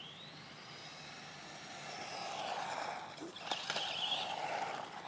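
Remote control car's motor whining and rising in pitch as the car speeds up, followed by a rushing tyre-and-drive noise with a few clicks about three and a half seconds in.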